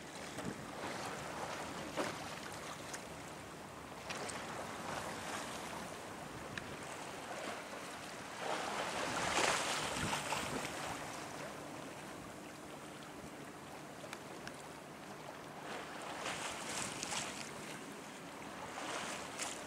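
Wind gusting over the microphone and choppy waves washing against the shore, a steady rushing noise that swells in stronger gusts about eight to ten seconds in and again around sixteen seconds.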